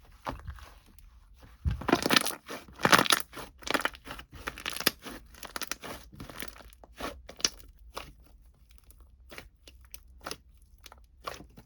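Irregular crinkling and crunching noises, a dense cluster about two to three seconds in, then scattered sharp clicks and rustles.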